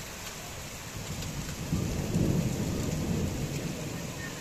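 Heavy rain pouring down steadily, with a low roll of thunder that swells about a second in, peaks around two seconds in, and fades away before the end.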